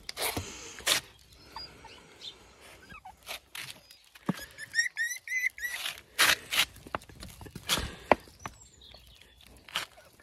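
Puppies scrambling and being lifted by hand on a concrete garden step: irregular scuffling, scraping and handling knocks, with a quick run of about six high chirps a little over four seconds in.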